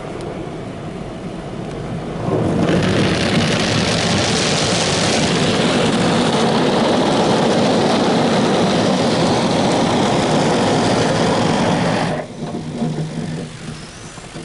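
Automatic car wash brushes and water scrubbing and pelting the car, heard from inside the cabin: a loud, steady wash noise that starts suddenly about two seconds in and cuts off suddenly near the end, with a lower rumble before and after.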